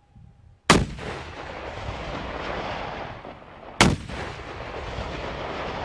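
Two sharp blasts from a shoulder-fired rocket launcher, about three seconds apart, each followed by a long rumbling echo.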